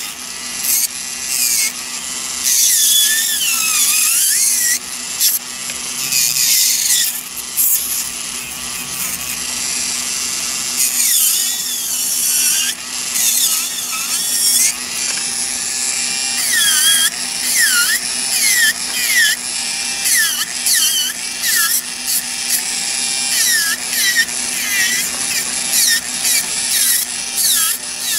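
Electric nail drill spinning a barrel bit against a fingernail, filing it down. The motor hums steadily under a high grinding hiss, and its whine dips and rises in pitch again and again.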